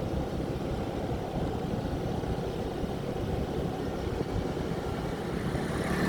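Steady low rumble of a vehicle on the move along a road, engine and wind noise with no speech. A brief sharp noise comes right at the end.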